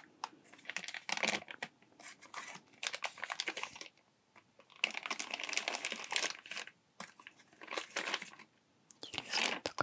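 Thin white packaging wrap crinkling as hands fold it open around a camera. The crinkling comes in about five bursts with short pauses between them.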